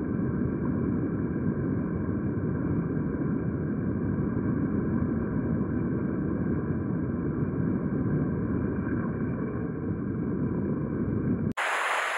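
Stream water rushing over stones, heard as a steady, dull, muffled rush. Just before the end it breaks off briefly and a clearer, hissier rush of the stream takes over.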